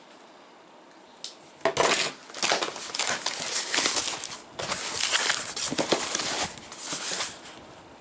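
Fog light kit being unpacked by hand: packaging rustling and crinkling with light clinks of parts, in irregular bursts starting a little under two seconds in.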